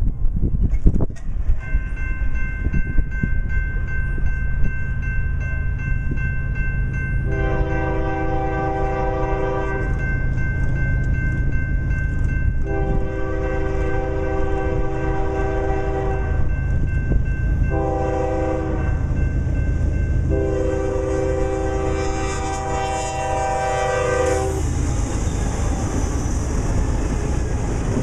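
Diesel freight locomotive approaching over a steady engine rumble and sounding its multi-note air horn in the long, long, short, long pattern of the grade-crossing warning. After the last blast the freight cars roll past with steady wheel-on-rail noise.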